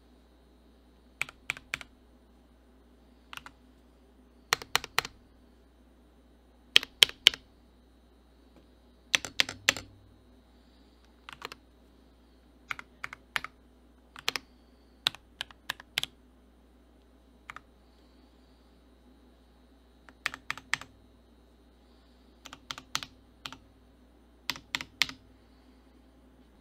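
Keychron V3 mechanical keyboard with linear K Pro Red switches and PBT keycaps being typed on: keystrokes come in short clusters of two to five, separated by pauses of about one to three seconds.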